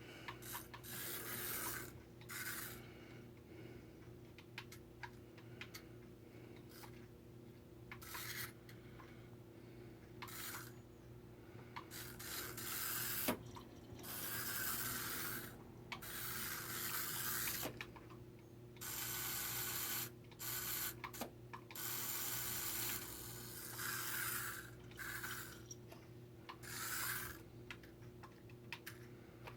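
Toy car driven in short stop-start bursts, each run a rasping, rubbing noise lasting about a second, repeated many times with short pauses between.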